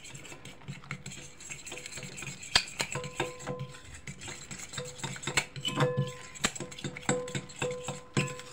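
Metal fork beating an egg-and-flour batter in a glass bowl, clinking and scraping against the glass in quick, irregular clicks.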